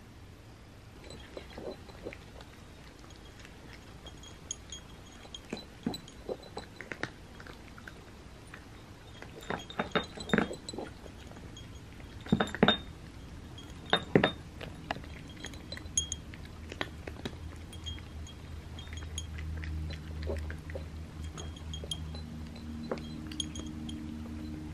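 Dry cat kibble clinking onto small ceramic saucers while cats crunch it and nose the dishes: scattered sharp clinks, loudest about ten to fourteen seconds in. A low steady hum builds near the end.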